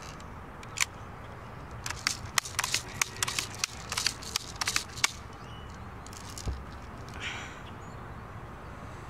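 Light sharp clicks from a Daisy 880 BB gun being handled between shots: one just under a second in, then a quick irregular run of about five clicks a second for some three seconds. A single dull thump follows later.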